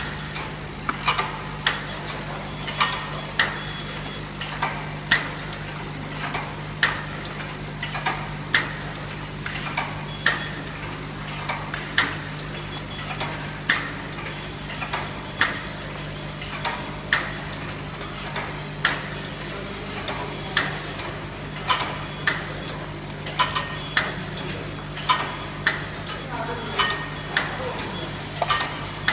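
Cellophane overwrapping machine running: a steady motor hum with sharp mechanical clacks, mostly in pairs about half a second apart, repeating every second and a half to two seconds as the machine cycles.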